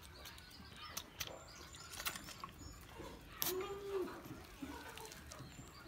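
Baby goat kid sucking milk from a feeding bottle: faint smacking and clicking, with one short low call about three and a half seconds in.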